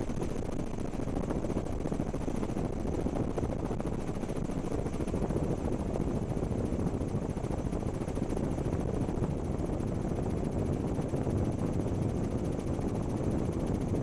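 Steady low noise of a helicopter in flight, heard from aboard, with a faint high steady tone above it.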